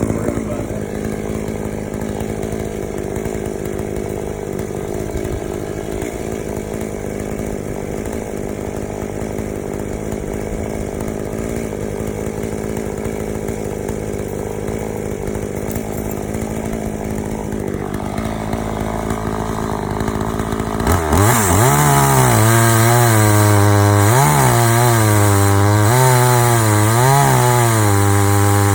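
Chainsaw on a chainsaw mill, its 22-inch bar flipped over, idling steadily, then throttled up about three quarters of the way through and run hard, its pitch wavering up and down as the chain cuts into a log.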